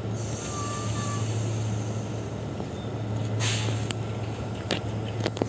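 Steady low rumble of vehicle noise in the open air, with a brief hiss about three and a half seconds in and a few light clicks near the end.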